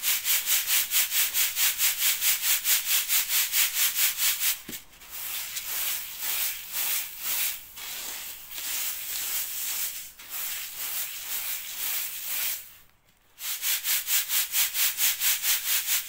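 Boiled, dried wheat grains (bulgur) swishing in a wire-mesh sieve with a wooden rim, shaken back and forth at about four strokes a second to sift them. In the middle the shaking gives way to quieter, uneven rustling as a hand works through the grain, then after a short pause the rhythmic shaking starts again.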